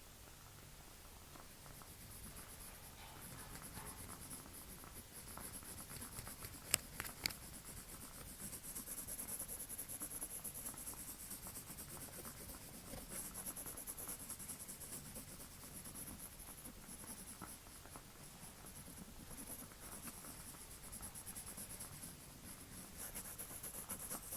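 Drawing strokes on paper: a continuous soft scratching that swells and eases with each stroke. Two sharp clicks stand out about a quarter of the way in.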